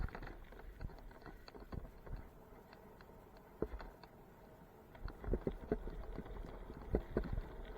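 Bicycle clattering and bumping over a rough trail while dogs pull it. Irregular knocks and rattles over a low rumble, coming thicker and louder in the second half.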